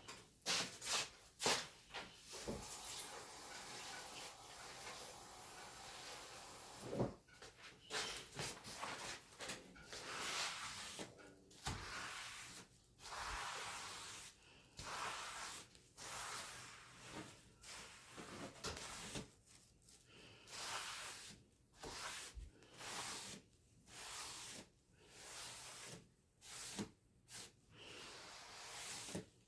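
Cleaning by hand: a steady hiss for a few seconds, then repeated rubbing or scrubbing strokes about one a second, with a few light knocks.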